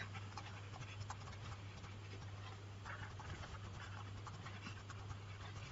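Faint scratching and light ticks of a stylus writing on a tablet, over a steady low electrical hum.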